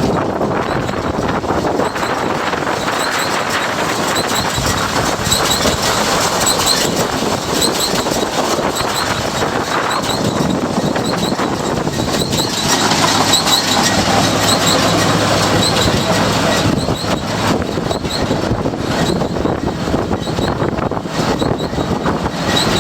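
New Holland 688 round baler running, its mechanism clattering steadily with regular light high-pitched ticks; a steady engine note comes in about halfway through.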